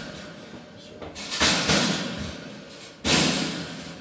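Metal wire cage being banged into place by hand: two bursts of rattling metal, the second starting with a sharp knock about three seconds in.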